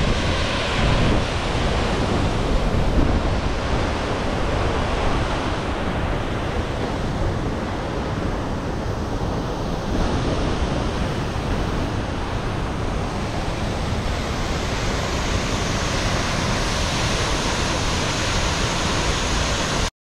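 Steady rushing roar of a large glacier-fed waterfall falling onto rocks.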